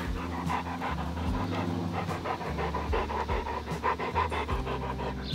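Rottweiler panting steadily.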